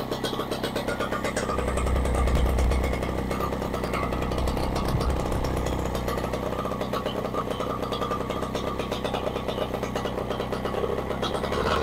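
Rotax 185 single-cylinder two-stroke engine running during its first warm-up, picking up briefly about two seconds in. It is picked up through a noise-deadening microphone, which makes the engine sound strange.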